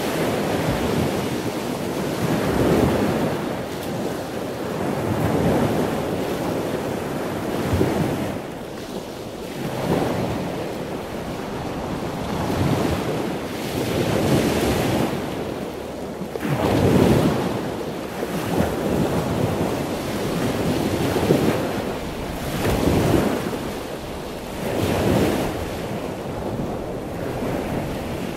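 Small ocean waves washing in over sand and rocks, the surf swelling and falling back every two to three seconds, with wind buffeting the microphone.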